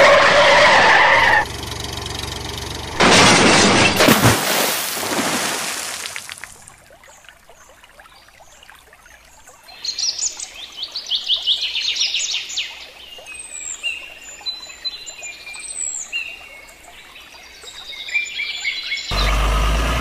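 A loud splashing rush lasting a few seconds as a toy tractor and its trolley tip into a muddy pond, then birds chirping and calling repeatedly.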